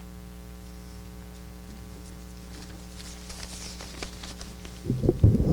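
Steady low hum from the room's sound system with faint rustles and clicks, then a cluster of dull low thumps near the end.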